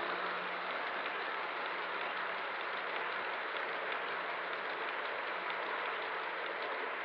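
O scale model Amtrak bilevel passenger train rolling past on three-rail track: a steady noise of metal wheels running on the rails, with a faint low hum underneath.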